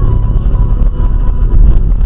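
A car running, with a loud, steady low rumble of engine and road noise.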